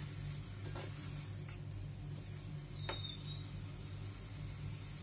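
Jaggery-and-coconut filling sizzling faintly in a nonstick pan as it cooks down and dries, with a wooden spatula stirring and a few light taps and scrapes against the pan. A steady low hum runs underneath.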